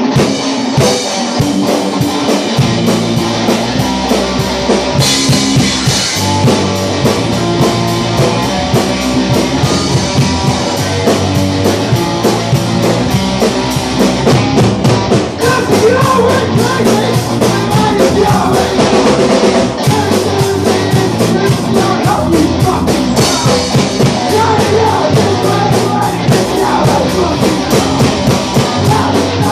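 Punk rock band playing loud and without a break: drum kit driving a steady beat under electric guitar.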